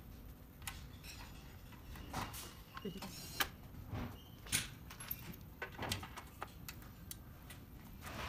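Scattered light clicks and knocks of an iPad being handled into a metal tablet kiosk enclosure and its faceplate being fitted over it.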